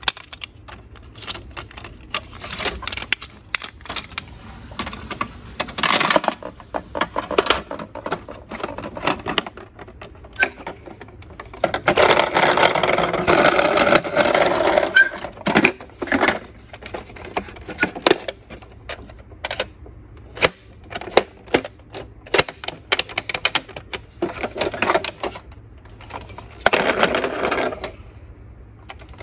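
A large plastic toy ambulance handled in a cardboard box: scattered plastic clicks, knocks and rattles, with rubbing and scraping against the cardboard. About halfway through comes a few seconds of dense scraping, with shorter bursts earlier and near the end.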